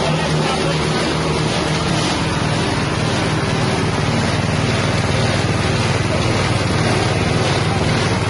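Grinding machine driven by a small 6.5 hp engine, running steadily at a constant speed.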